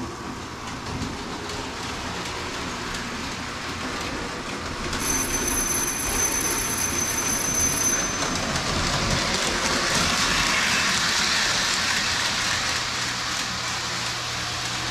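Lionel O-gauge toy trains running on three-rail track, among them a pre-war 225E steam locomotive pulling pre-war passenger cars: a steady running noise of motor and wheels that grows louder from about halfway. A thin high whine sounds for a few seconds near the middle.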